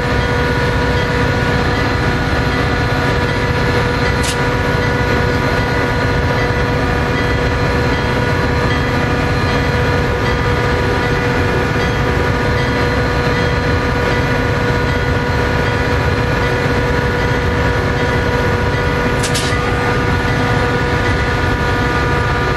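Metra diesel passenger train running steadily close by: an even drone with several steady held tones that does not change.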